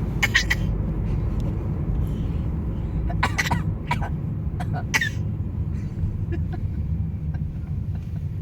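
Short coughs traded between a father and his baby, who copies him. There is a cluster right at the start and several more between about three and five seconds in, over the steady low rumble of the car's interior.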